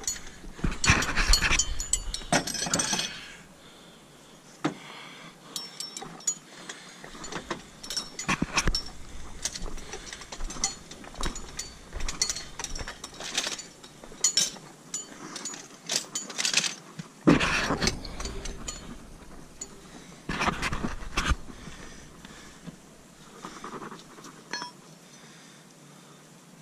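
Metal horseshoes clinking and clanking as they are picked from a truck's shoe rack and handled. Scattered sharp clinks and knocks run throughout, with louder clanks in the first few seconds and again about two thirds of the way in.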